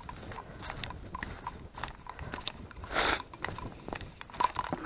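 Crunching, clicking steps on the trail, with a short, louder rustle about three seconds in.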